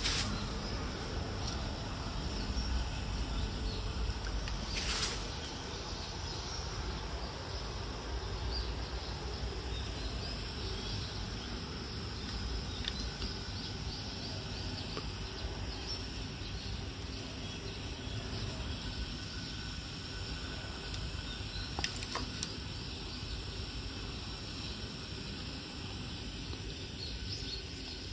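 Early-morning outdoor garden ambience: a steady low rumble and hiss with no clear single source. A brief click about five seconds in and a couple more a little after twenty seconds.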